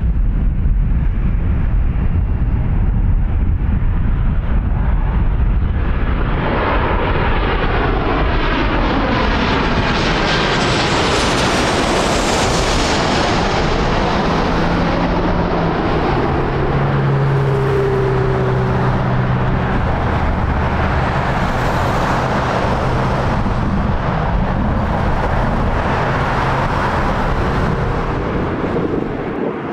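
Southwest Boeing 737 jet engines as the airliner passes low overhead on short final: the roar builds to a peak about a third of the way in, with sweeping tones falling in pitch as it goes over, then a steady roar as it flies away.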